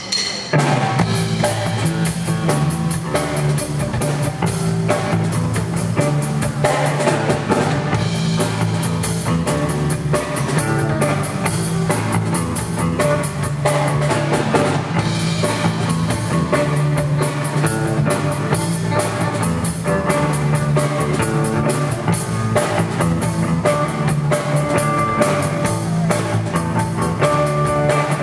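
Live band playing: drum kit keeping a steady beat under an electric bass line and electric guitar.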